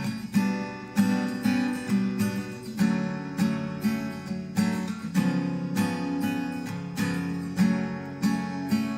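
Acoustic guitar strumming chords in a steady rhythm, a pre-recorded accompaniment playing the song's instrumental intro.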